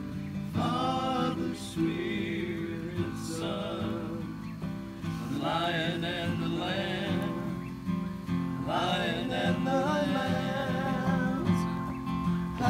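Acoustic guitar strummed in steady chords for a worship song, with voices singing along in phrases a few seconds apart.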